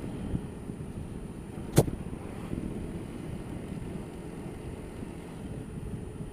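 Honda Dio scooter riding along a street, a steady low rumble of engine and riding noise picked up by a helmet-mounted camera. A single sharp knock comes about two seconds in.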